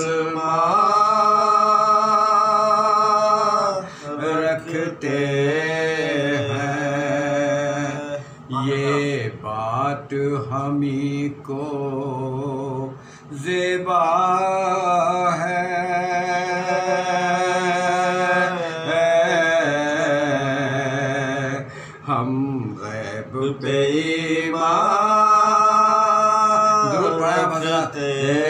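Soz-khwani: a man's voice chanting an Urdu elegy unaccompanied, in long, slowly drawn-out held notes with ornamented turns. The phrases last several seconds each and are broken by short pauses for breath.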